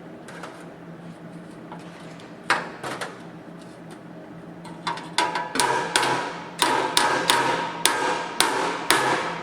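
Hammer tapping a sheet-metal sill panel into position, each blow ringing metallically: two taps a few seconds in, then a run of about ten taps, roughly two a second, over the second half. A steady low hum continues underneath.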